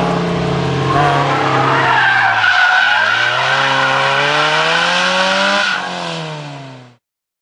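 A car engine revving under load while its tires squeal in a slide. The engine's pitch dips and climbs again about halfway through, and the sound fades and then cuts off near the end.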